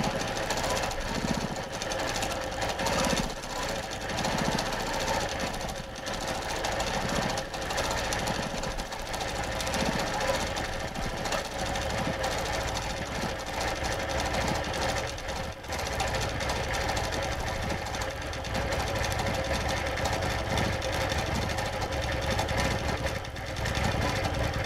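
Longarm quilting machine stitching, its needle running at a fast, even stitch rate with a steady hum as it free-motion quilts fill work.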